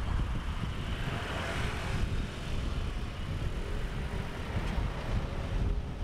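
Wind buffeting the microphone with a low rumble, over a steady wash of passing road traffic that swells briefly about a second in.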